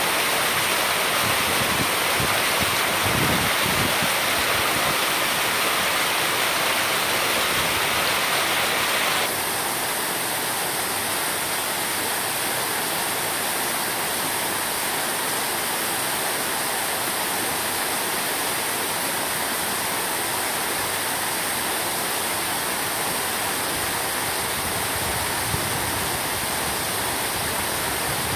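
Water pouring over a small concrete weir from a pond into the channel below: a steady rushing splash. About nine seconds in it steps a little quieter and duller.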